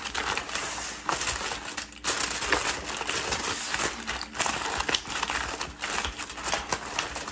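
Aluminum foil crinkling as it is stretched over a baking dish and crimped down around its rim by hand, in irregular bursts of crackling.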